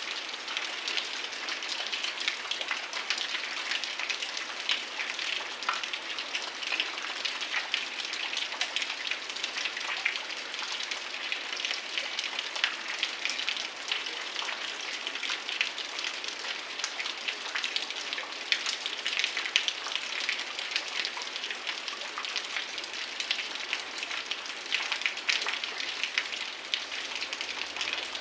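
Heavy rain falling steadily: a dense, even patter of countless drops striking surfaces.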